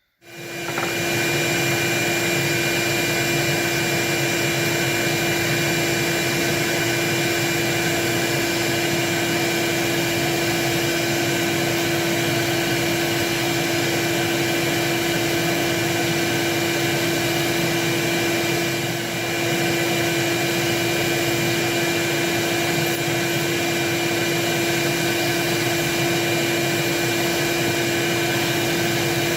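Home-built sander, an old furnace motor spinning a fine-grit sanding drum, starts up and runs steadily alongside a shop vac drawing off the dust, while the edge of thick sewn leather is sanded. The level dips briefly about 19 seconds in.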